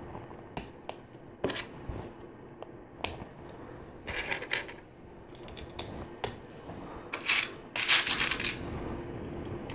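LEGO Technic plastic pieces clicking and rattling as they are handled and pressed together, with scattered sharp clicks and a louder rattle of loose parts near the end.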